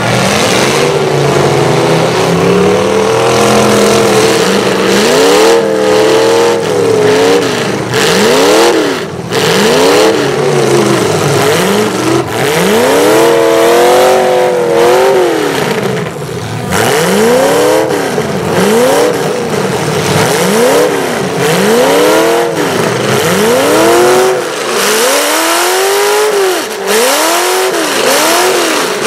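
Demolition derby cars' engines revving hard and falling back again and again, several engines at once, with a few sharp bangs of cars hitting each other.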